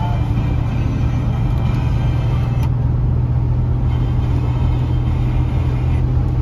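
Steady low drone of a square-body pickup's engine and road noise heard inside the cab while driving, with one short click about two and a half seconds in.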